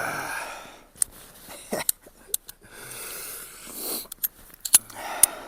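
Hissing breaths on the microphone and a handful of sharp clicks from handling a Cimarron .45 Long Colt single-action revolver after a string of shots.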